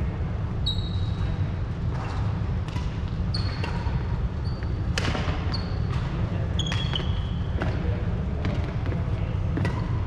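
Badminton rally: sharp racket strikes on the shuttlecock about once a second, with short high squeaks of shoes on the wooden court floor, over a steady low hum.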